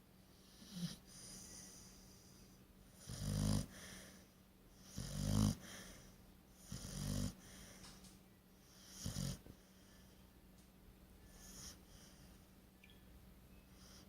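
A sleeping pit bull snoring: a run of low, rasping snores about two seconds apart. The loudest come a few seconds in, with fainter ones at the start and near the end.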